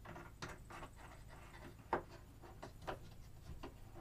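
Faint clicks and light taps of hands handling battery cables and their wall-mounted connectors, with the sharpest click about two seconds in.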